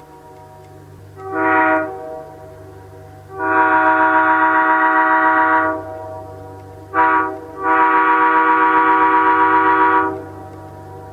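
Nathan Airchime K3L three-chime locomotive air horn sounding four loud blasts of its chord in a short-long, short-long pattern. Each long blast lasts about two and a half seconds.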